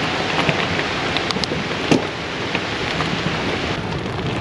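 Steady rushing noise of wind and rolling while riding a bicycle with a loaded camper trailer in gusty wind. A few sharp rattling clicks come about a third of the way in.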